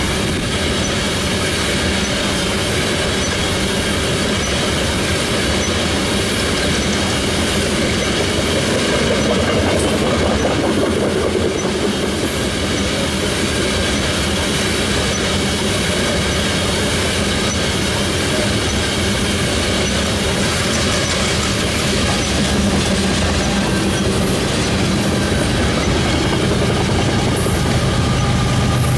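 Freight train of tank cars rolling past close by: a steady rumble and clatter of steel wheels on the rail, with a continuous high wheel squeal over it.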